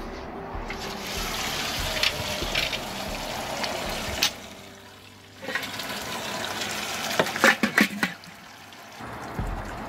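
Wort running and splashing in the stainless-steel grain pipe of an all-in-one electric brewing kettle, with a short lull near the middle. Several sharp metal knocks come a little before the end as the grain pipe is raised.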